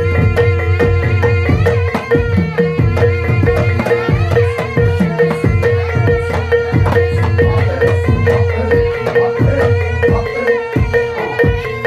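Javanese gamelan music for a barongan dance: hand drums play a fast, busy rhythm with sliding low drum notes over struck metal percussion and a steady ringing tone.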